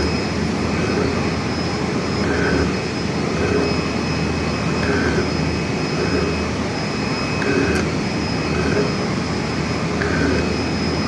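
Metal lathe running with a steady mechanical whine and hum, a short higher note recurring about every second and a quarter.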